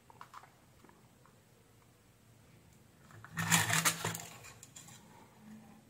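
A few faint clicks, then about three seconds in a short burst of clatter and rubbing as a switch-mode power supply circuit board is picked up and turned over on the workbench, dying away within about a second.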